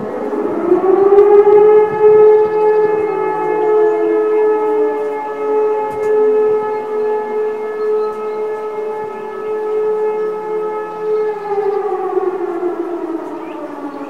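E57 electromechanical motor sirens sounding a test alarm. The main siren winds up in pitch over the first two seconds, holds a steady wail, and starts winding down near the end. A second, more distant E57 sounds underneath at a slightly different pitch.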